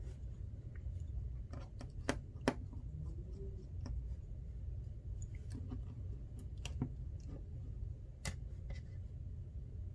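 Small clicks and scrapes of a pry tool working at an iPhone XR's display flex connectors on the logic board, with a few sharper snaps as the connectors come free. A steady low hum runs underneath.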